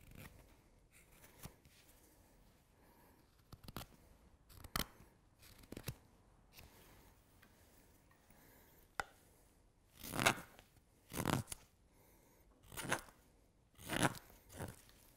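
Carving knives slicing shavings from a green-wood spoon. A few light, short cuts come first, then from about ten seconds in, four louder, longer strokes as a hook knife hollows the bowl.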